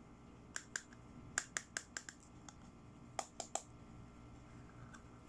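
Fingernails tapping and clicking on a black plastic pressed-powder compact as it is handled: a run of about seven sharp clicks, then three more about a second later.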